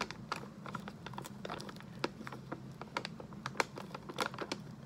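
Coffee bag crinkling and rustling as it is handled and its top is worked closed, in scattered irregular crackles and clicks.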